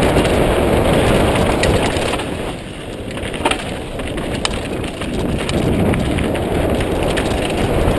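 Mountain bike riding down rocky dirt singletrack: wind rushing over the bike-mounted camera's microphone, with the tyres and frame rattling over rock. Two sharp clicks a few seconds in.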